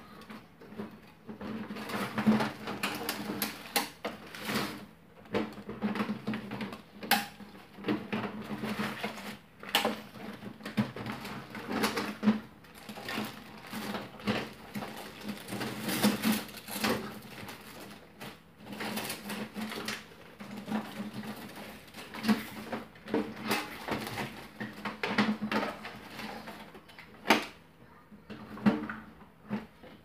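Rummaging through a box of small metal hand tools: tools clattering and clicking against each other and the box in quick, irregular bursts.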